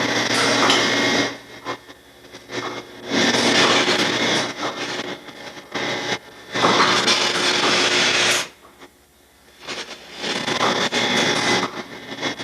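Vacuum milking machine: the teat cups hiss as they suck air while being put on the cow, in stretches of a second or two with short gaps, over the steady low hum of the vacuum system.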